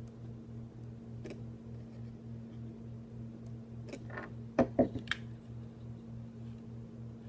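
Hand tools at work on the frame of a Smith & Wesson M&P Shield 9mm pistol during a trigger install: a light click, then about four seconds in a quick cluster of three or four sharp taps. A steady low hum runs underneath.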